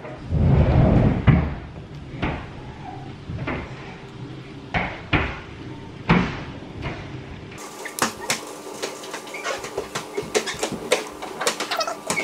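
Rustling handling noise for the first second and a half, then a scattered run of light clicks and knocks that come more often in the second half.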